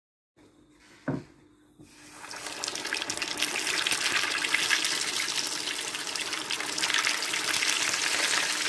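Floured pieces of fish deep-frying in a small saucepan of hot oil: a dense crackling sizzle that builds up about two seconds in. A single knock comes just before it, about a second in.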